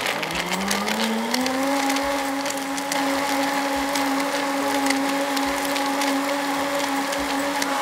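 Sencor blender running on its smoothie program, grinding almonds and water into almond milk. The motor spins up in the first second and a half, then holds a steady whine with a fine crackle over it.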